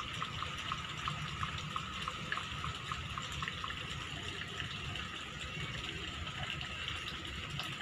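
Steady rushing hiss of open-air ambience. For the first half, a faint, fast, regular ticking runs at about four or five ticks a second, then stops.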